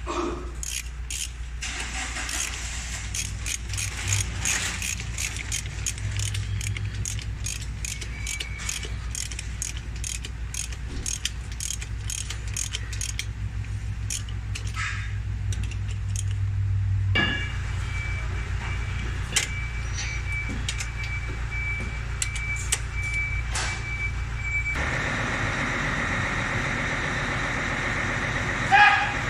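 Ratchet wrench clicking in quick strokes as bolts are turned on a truck's air brake compressor. Under it runs a steady low engine hum. The clicking stops a little past halfway.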